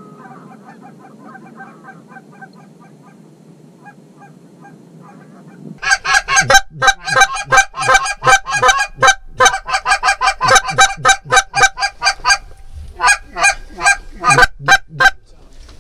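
Geese honking: faint, scattered honks at first. About six seconds in, a loud, fast run of honks and clucks starts, several a second, with short breaks near the end.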